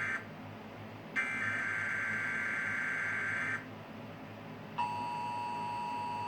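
Emergency Alert System test on broadcast TV: the end of one SAME header data burst, then after a one-second pause a second burst of the buzzing digital warble lasting about two and a half seconds. These bursts carry the alert's encoded data. Just over a second later the steady two-tone attention signal (853 and 960 Hz together) begins, announcing that an alert message follows.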